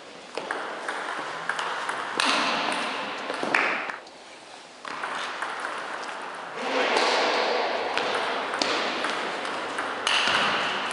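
Table tennis rally: the celluloid ball clicks off the players' rubber bats and the table in quick, irregular strokes, about one to two a second, over steady hall noise.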